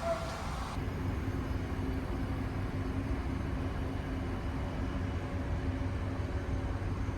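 Steady low rumble of the ferry Yamato under way, its engines droning through the passenger cabin, with a faint steady hum.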